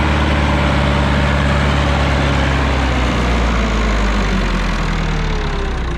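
Ursus 5314 tractor's diesel engine running as it drives close past, pulling a loaded hay trailer. Its pitch slides slightly lower and it grows a little quieter in the second half as it moves away.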